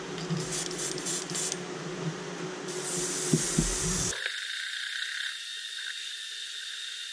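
Airbrush spraying: a short burst of hiss about three seconds in, lasting a little over a second. It follows a few light metal clicks as the helping-hands clamp holding the lure is handled.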